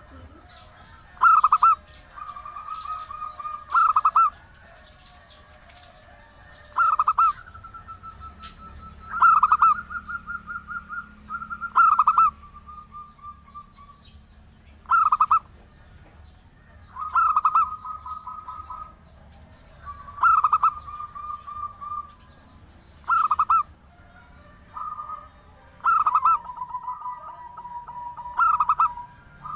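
Female zebra dove (perkutut) cooing: about a dozen phrases, one every two to three seconds, each a sharp note followed by a rolling, trilled coo. It is a female's call to draw males.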